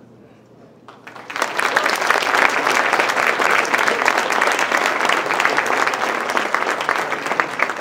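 Audience applauding: a few claps about a second in, then full, steady clapping from many people.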